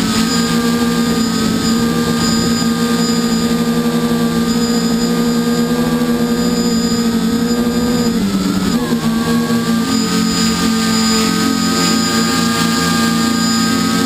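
A multicopter's electric motors and propellers whining steadily, heard from on board the craft. Their pitch dips and wavers briefly about eight seconds in, then settles again.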